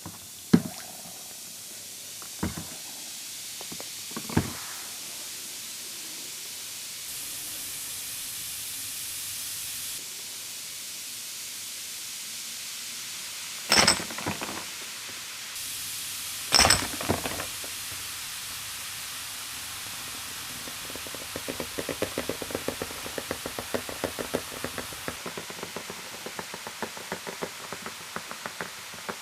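A bath ball fizzing in water as it dissolves, a steady hiss. There are a few knocks in the first seconds and two louder sharp sounds around the middle, and a quick crackling fizz takes over in the last third.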